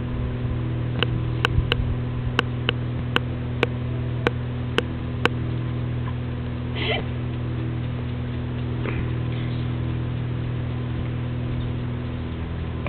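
A Rhodesian ridgeback's leg kicking in a scratch reflex, its claws ticking about ten times at roughly two a second for a few seconds, over a steady electrical hum.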